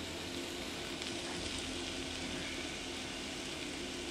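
Diced potatoes and onions frying in oil in a pot: a steady sizzle.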